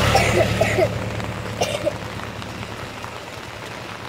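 An SUV passes close by on a wet road, its engine hum and tyre hiss fading away over the first two seconds. Steady rain hiss remains.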